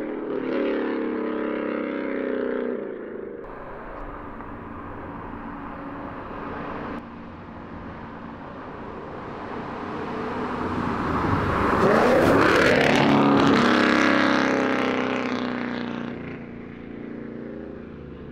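A 2012 Ford Mustang GT's 5.0 Coyote V8, running catless through long-tube headers, an off-road X-pipe and a Borla ATAK axle-back, driving past. After a louder few seconds at the start, the engine note swells as the car approaches, peaks about twelve to fourteen seconds in as it goes by, then fades away.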